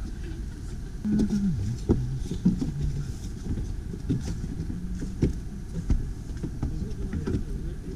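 Low wind rumble on the microphone, with irregular knocks of footsteps on a wooden deck and a brief muffled voice about a second in.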